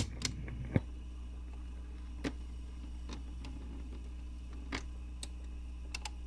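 Stylus riding in a vinyl record's run-out groove after the last track: a steady low hum with surface noise and scattered clicks and crackles.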